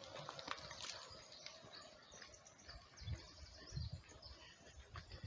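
Faint forest ambience with small birds chirping now and then, and a few soft low thumps in the second half.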